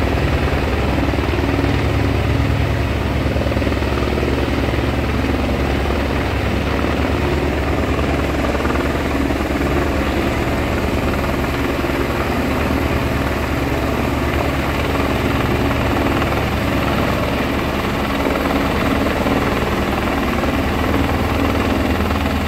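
Helicopter hovering overhead while lifting a load on a long line: a steady, fast rotor beat over the engine noise.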